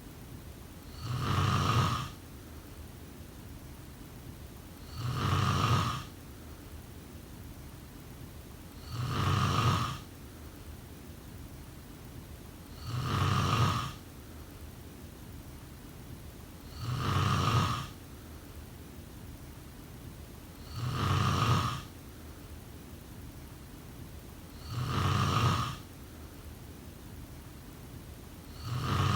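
A person snoring: one even snore about every four seconds, each lasting about a second, with a faint steady hiss between them.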